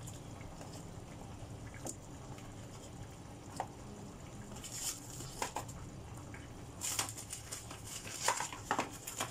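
Water boiling in a steel pot of dumplings: a steady low bubbling rumble with scattered pops and crackles, busier in the last few seconds.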